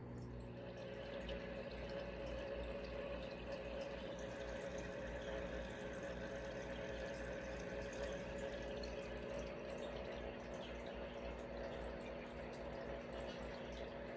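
Aquarium filters running: water trickling and splashing into the tank, with a steady low hum underneath.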